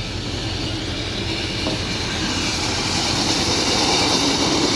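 Train running through the station on the rails, its wheel and rail noise growing steadily louder as it approaches.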